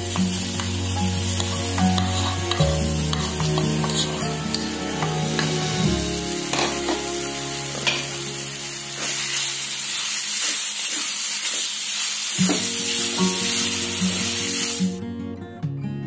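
Prawns frying in a pan of onion-tomato masala, sizzling loudly while being stirred, with the spatula scraping the pan often. The sizzle cuts off suddenly near the end, leaving only background music.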